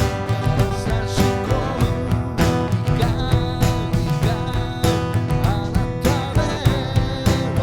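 Background music with strummed acoustic guitar and a melodic voice line.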